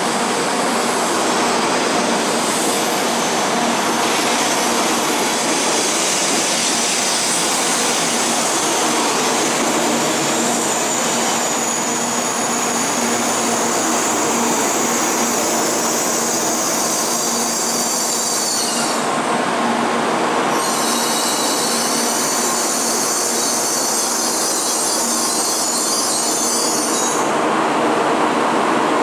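Shinkansen train pulling slowly out along the platform: a steady rumble of the cars and running gear, with a high squeal over it that breaks off briefly twice in the second half.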